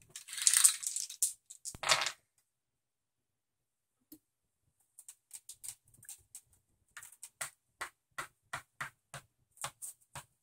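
Monopoly pieces on a wooden table: a short rattle and a sharp click in the first two seconds. From about halfway comes a run of light, evenly spaced taps, two to three a second, as a plastic token is moved space by space along the board.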